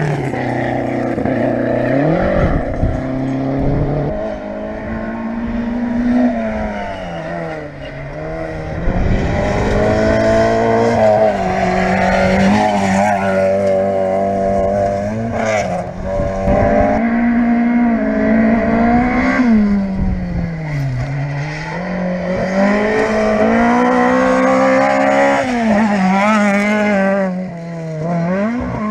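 Historic rally car engine being driven hard on a stage, revving up through the gears and dropping sharply on the brakes and downshifts several times, with short climbs between.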